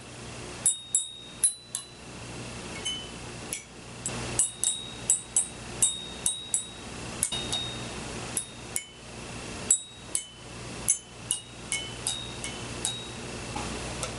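Small bossed gongs of a kulintang struck again and again with a thin stick: a quick, uneven run of sharp metallic taps, each leaving a short, high ring.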